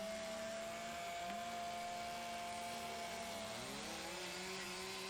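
Chainsaw engines running steadily at high revs; about three and a half seconds in, one drops in pitch as it comes off the throttle.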